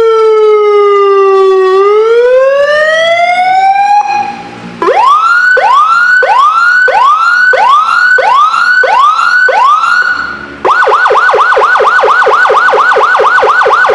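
Loud 12-tone electronic siren module cycling through its tones. First a slow wail falls and then rises. After a brief break about four seconds in, it switches to a repeated rising whoop, roughly one and a half a second. After another break about ten seconds in, it goes to a fast yelp of four or five sweeps a second.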